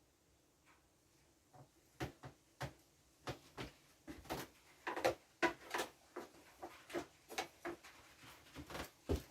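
Potting soil being pushed and pressed by hand around a transplanted seedling in a pot: a run of irregular soft knocks and rustles, thickest about halfway through.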